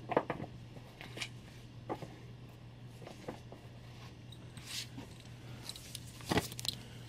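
Scattered faint rustles and light taps of comic books and packaging being handled, the loudest a short cluster about six seconds in, over a steady low hum.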